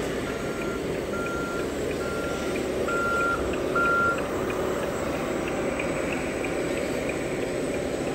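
Electronic reversing beeper from an RC construction model's sound module, beeping at one steady pitch about once every 0.8 seconds, five beeps in all, the last two louder. It stops about four seconds in, leaving steady background noise.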